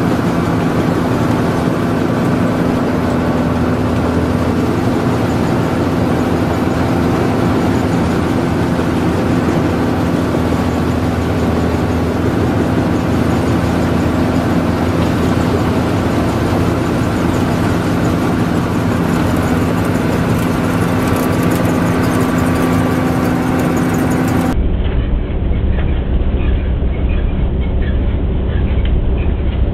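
Grape harvester running steadily, its engine droning close by as the machine works, with the conveyor carrying grapes. About 25 seconds in the sound turns duller and deeper.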